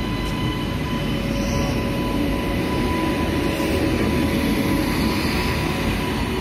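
WAP-5 electric locomotive and its express train running past: a steady rumble with a thin steady whine over it.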